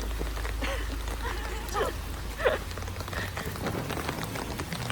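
Steady background hiss with scattered light clicks and a few brief, faint snatches of voices.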